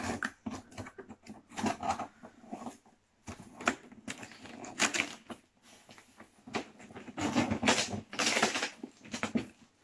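Scissor blade slitting packing tape on a cardboard box, with irregular scratches, taps and crackles of tape and cardboard. Louder rustling and scraping near the end as the cardboard flaps are pulled open.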